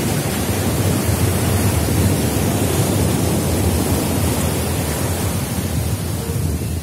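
Sea surf breaking and washing up a sandy beach, a loud, steady rush, with wind buffeting the microphone.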